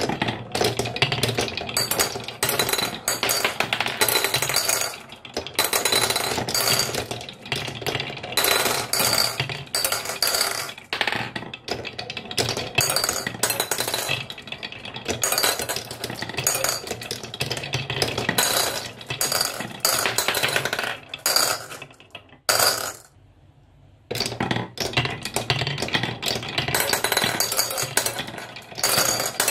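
Glass marbles rolling and rattling along wooden wavy-grooved marble-run tracks, a dense run of clicks and clacks, with marbles clinking as they drop into plastic and ceramic bowls. It goes briefly quiet a little after three quarters of the way through, then the clattering resumes.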